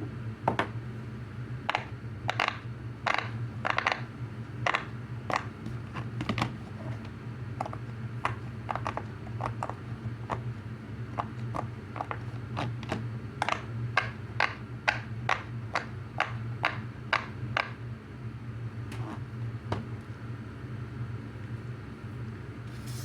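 Silicone pop-it fidget toy having its bubbles pressed one after another: a string of sharp popping clicks at an uneven pace of about one to three a second, over a steady low hum.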